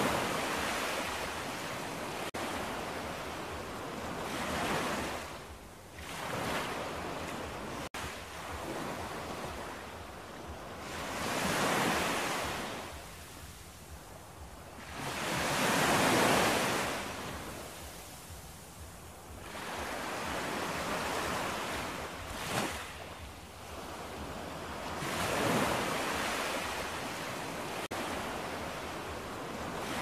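Small sea waves breaking and washing up onto a sandy beach, the surf swelling and fading every few seconds.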